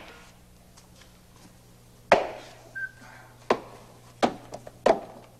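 A handful of sharp knocks and taps on hard surfaces, about five or six, starting about two seconds in and coming at uneven intervals, with a short squeak between the first two.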